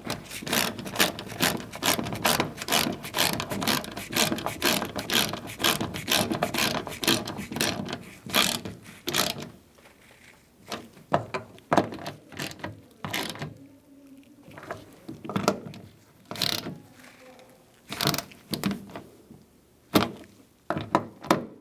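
Hand ratchet with a 10 mm socket clicking as it tightens the door handle bracket's nuts down wrist tight. Fast, dense runs of clicks for the first half, then slower, spaced-out clicks and short runs.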